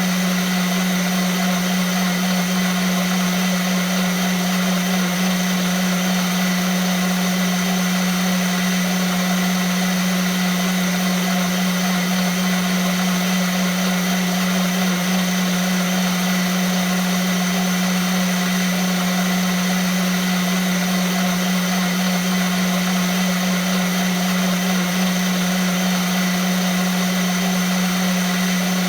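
Vitamix blender motor running steadily at one speed. It gives an unchanging loud low hum with a whine above it.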